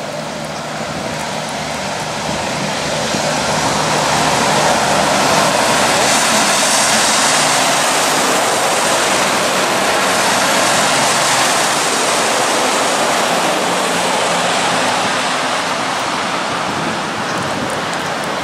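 Road trains passing on a wet highway: a loud hiss of tyres throwing spray off the wet road, swelling about five seconds in and slowly fading, with a low diesel engine hum underneath.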